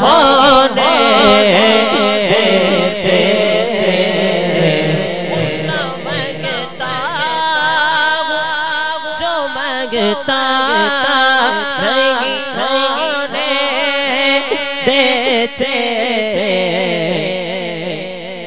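Male voices singing a devotional Urdu kalam (naat) over microphones, in long drawn-out lines with wavering ornaments on the held notes. It gets quieter toward the end.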